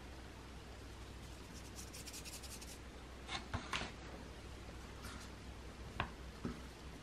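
Fingers rubbing flour to sprinkle it into a metal tart pan: a faint dry rustle for about a second and a half. A few soft taps follow as the rolled shortcrust dough is handled.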